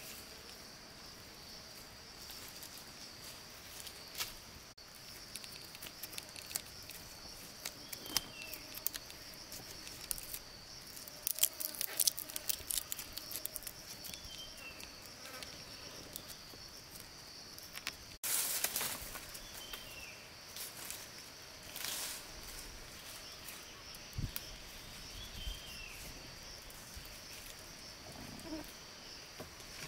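Insects buzzing steadily at a high pitch, with a few short high chirps and scattered clicks and crackles: a burst of them near the middle, and a sharp crack soon after.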